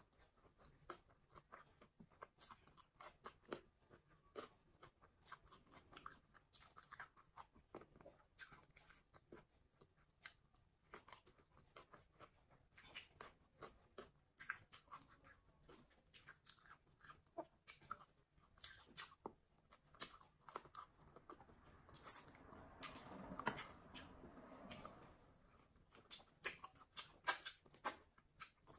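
Close-miked chewing of a mouthful of fried rice and salad: a steady run of small wet mouth clicks and smacks with some crunching. About 22 seconds in it grows denser and louder for a few seconds, with the sharpest click of the stretch.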